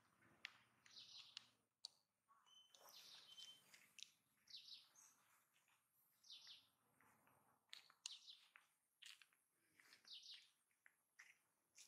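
Faint bird chirping: short high notes repeated every second or two, with a few soft ticks in between.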